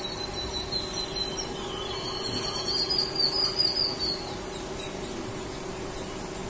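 Babblers calling in high, thin, squeaky notes, a quick run of them loudest between about two and four seconds in, over a steady low hum.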